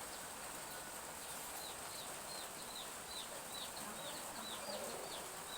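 Chicks peeping: a run of short, falling peeps, about two or three a second, starting a second or so in, over a steady high hiss.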